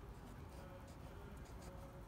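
Faint strokes of a felt-tip marker writing letters on paper.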